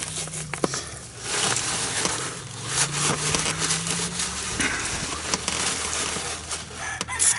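Steel wool scrubbing rust out of a golf cart's leaf-spring mount, then a rag rubbing it clean, with scattered small clicks and knocks of metal and hands.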